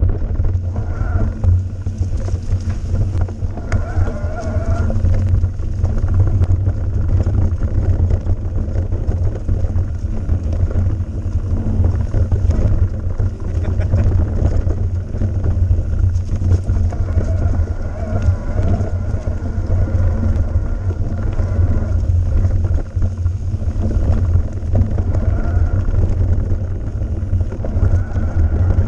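Mountain bike riding fast over a rough dirt trail: a continuous low rumble of wind and tyres on the camera's microphone, with constant small knocks and rattles from the bike jolting over the ground.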